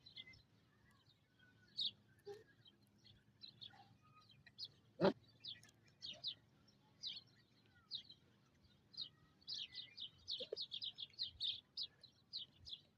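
Faint, quick high chirps of small birds, scattered at first and then coming in a fast run near the end, with one sharp click about five seconds in.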